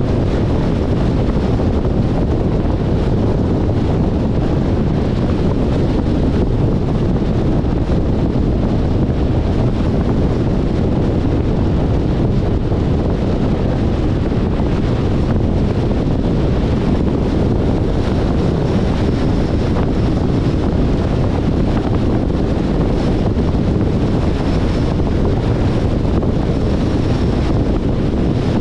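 Steady wind rushing over the microphone together with road noise from a 2021 Jeep Compass driving at speed. A faint high whine comes in about two-thirds of the way through.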